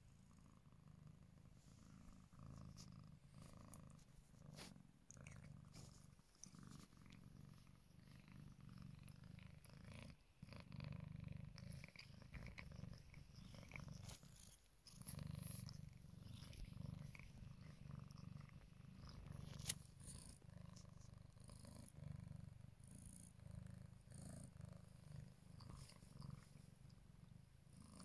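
A cat purring steadily, close to the microphone, with two brief pauses, and a single sharp click about two-thirds of the way through.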